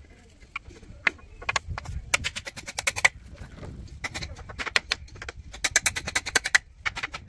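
A hammer driving nails into a plywood frame, in several quick runs of sharp taps.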